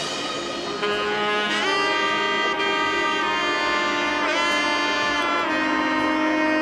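Background music: a slow melody of long held notes on a wind instrument, with small bends in pitch.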